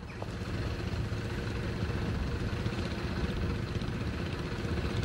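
Steady low engine rumble with a faint hum, fading in at the start: a passenger ferry's engine running on the water.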